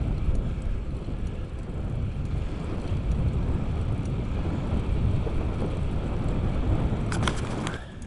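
Wind buffeting the microphone of a camera riding along on a moving bicycle, a loud, deep rushing. Near the end a few sharp clicks sound and the wind noise drops away.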